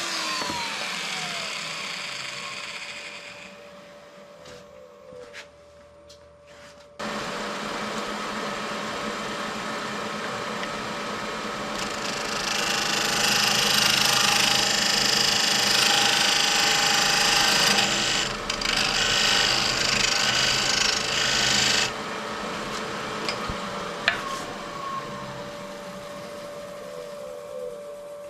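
Wood lathe winding down with a falling tone at the start, then switched on again about seven seconds in and running steadily. From about twelve to twenty-two seconds a tool scrapes loudly against the spinning wood of a wine-stopper blank.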